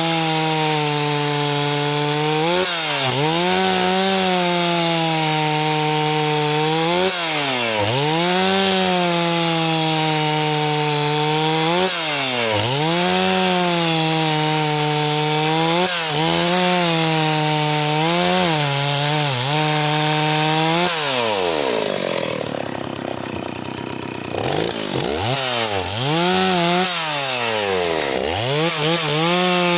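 Stihl 038 two-stroke chainsaw at full throttle cutting wood, its pitch sagging every few seconds as the chain bites and recovering between. A little past two-thirds through, the revs fall away and the saw slows for a few seconds, then it revs back up.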